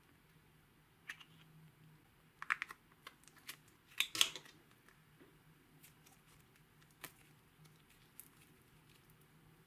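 Sharp plastic clicks and taps from a small plastic macaron-shaped case being handled and opened, the loudest cluster about four seconds in. A few lighter ticks follow as the soft slime inside is handled.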